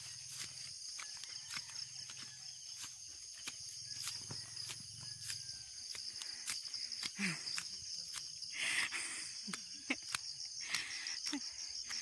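A steady high-pitched insect chorus, typical of crickets, pulsing fast. Over it come scattered footstep crunches and clicks from walking on the trail.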